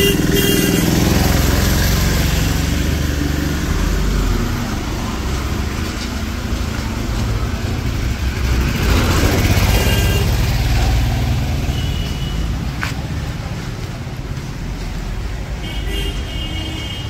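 Close-range street traffic: motorcycle and small-vehicle engines running and moving past, swelling louder around the middle, with a few short high tones in the second half.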